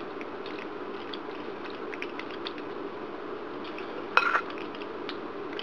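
A utensil pressing sauced macaroni down into a baking pan: faint soft clicks and scraping over a steady low hum, with one louder knock about four seconds in.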